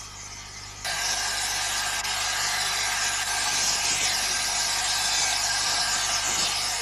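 Andrew Barclay steam locomotive No. 10 standing with steam blowing off in a loud, steady hiss that starts abruptly about a second in.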